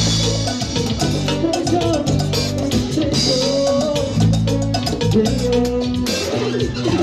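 Live band playing an instrumental passage of Latin dance music: a steady drum and percussion beat under a bass line, with a melodic lead line sliding up and down.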